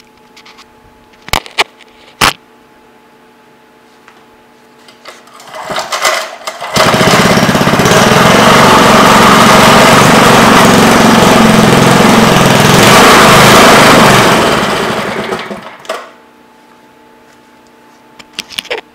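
Briggs & Stratton 3 hp horizontal-shaft single-cylinder engine starting about seven seconds in after a couple of sharp knocks, running loud and steady for about seven seconds, then winding down to a stop.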